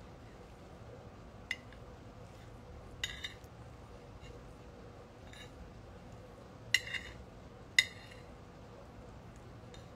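Metal cutlery clinking against a plate: a few separate sharp clinks with a short ring, the loudest pair a little past the middle.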